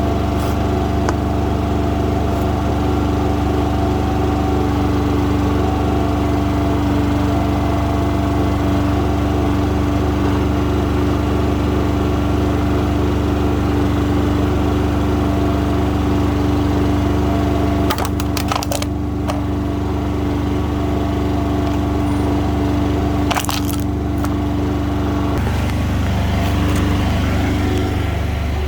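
Mini excavator engine running steadily under work, with a couple of short sharp cracks about two-thirds of the way through and a change in the engine note near the end.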